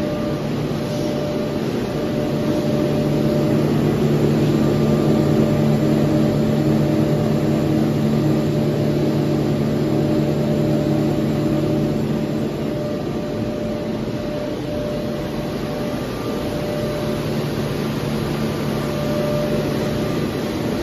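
Steady drone of running thermal lamination film production machinery, with several steady hum tones over a noisy wash. It is slightly louder from about two to twelve seconds in.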